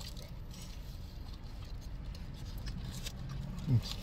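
Faint crinkling of a foil sandwich wrapper and chewing over a low, steady car-cabin hum. Near the end there is a short hum from a voice, falling in pitch.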